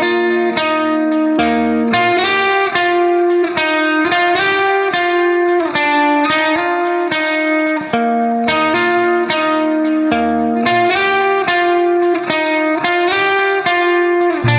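Background music: a plucked guitar melody, its notes following each other at about three a second.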